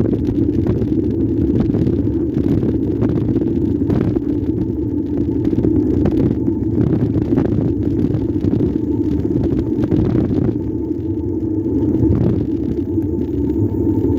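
Steady rumble of road and wind noise from an e-bike riding along an asphalt street, with scattered knocks and rattles as it goes over bumps and cracks.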